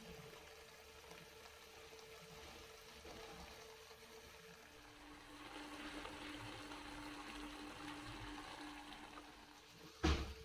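Chicken and sauce simmering in a non-stick wok: a soft bubbling hiss with a steady hum, louder from about five seconds in. Near the end a spatula starts stirring, knocking sharply against the pan.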